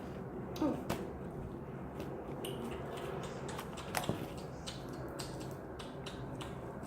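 Scattered small clicks and soft handling noises over a steady background hiss.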